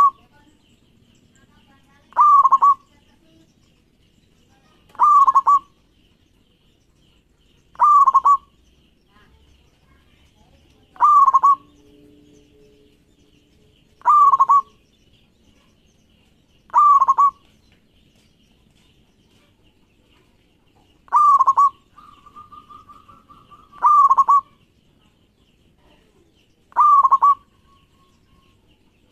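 Zebra dove (perkutut) cooing: short calls repeated about every three seconds, one held longer a little past the middle. A faint steady high buzz runs underneath.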